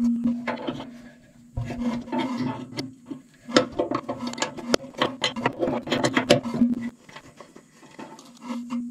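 Hands handling the drain valve and the funnel jammed under a dozer's steel fuel tank: irregular clicks, taps and scraping, busiest in the middle.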